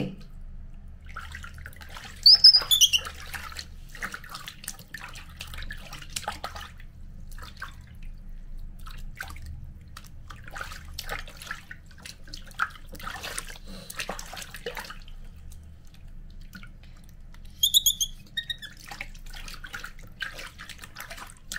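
Water splashing and trickling in a plastic basin as a baby monkey is bathed by hand. Twice, about two seconds in and again past the three-quarter mark, the baby monkey gives short high squeaks that fall in pitch; the first is the loudest sound.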